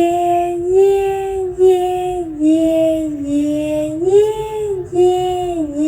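A high-pitched voice chanting "yeah" again and again in a drawn-out, sing-song way, each "yeah" running into the next as the pitch steps up and down.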